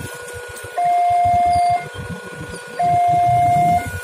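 Railway level-crossing warning alarm sounding, warning that a train is coming. It is an electronic two-tone signal that switches between a louder low tone and a quieter higher tone about once a second. Vehicle engines rumble underneath.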